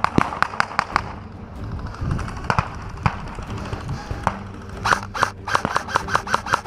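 Airsoft gunfire: scattered sharp shots, then from about five seconds in a steady string of shots at about four a second.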